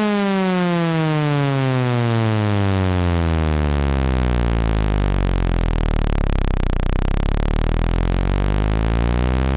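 Synthetic water-ejection tone for a phone speaker: a loud, buzzy tone that slides down in pitch to a deep low hum around the middle, then starts climbing again near the end. It is meant to shake water out of the speaker.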